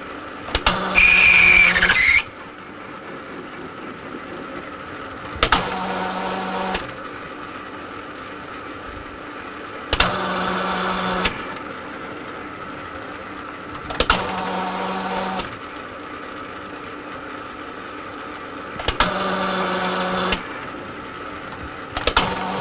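Metal lathe running, taking repeated screw-cutting passes on a multi-start thread in a brass workpiece. Each pass starts with a clunk and runs for about a second and a half, about every four to five seconds. The first pass carries a loud high scrape of the tool, on a thread the machinist suspects has gone amiss.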